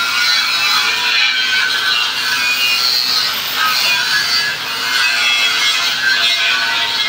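Steady hiss of a compressed-air spray gun spraying paint onto a metal frame, with guitar background music underneath.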